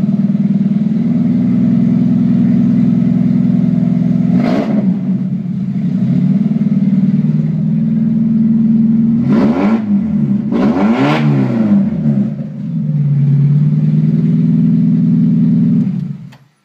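Mazda Miata four-cylinder engine idling, blipped up in revs and back three times, then switched off near the end.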